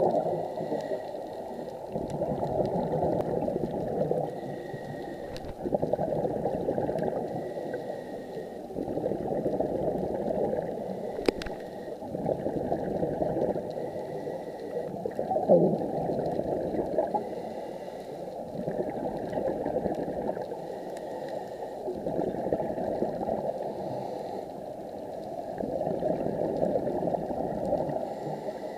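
Underwater bubbling and gurgling that swells and fades in surges every few seconds, the rhythm of a diver's exhaled breath bubbling away. A single sharp click sounds about eleven seconds in.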